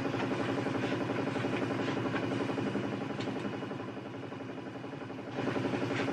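Steady mechanical hum of a running motor or engine, dipping slightly in level for a couple of seconds past the middle.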